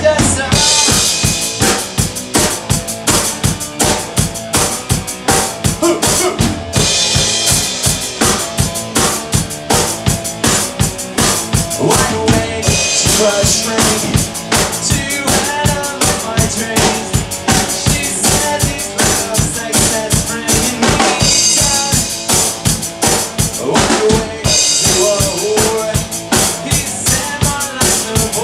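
Pearl drum kit played by a beginner in a steady, fast bass-drum and snare beat, about five hits a second, with cymbal crashes several times. An electric guitar and a man singing into a microphone play along.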